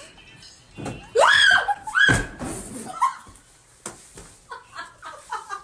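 A woman's rising shriek as she falls off a bed, then a heavy thud on the floor about two seconds in with a second cry, followed by scattered voices.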